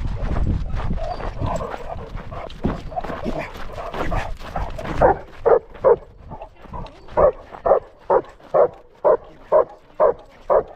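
A dog barking in a steady run, about two barks a second, starting about halfway through. Before that, irregular rustling and low rumbling noise, loudest at the start.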